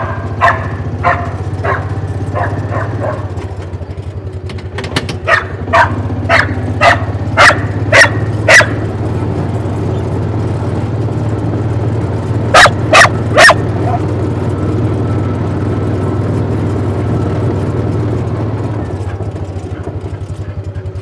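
Dog barking in sharp single barks: a few at first, a run of about eight around the middle, then three loud ones close together, over the steady hum of an engine running.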